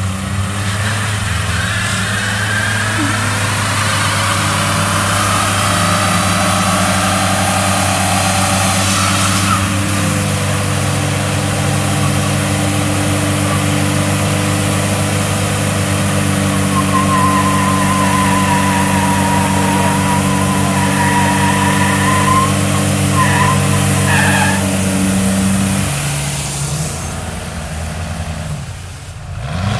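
Small SUV's engine held at high, steady revs through a burnout, its rear tyres spinning and smoking on the wet road, with a high wavering squeal partway through. The revs drop off a few seconds before the end.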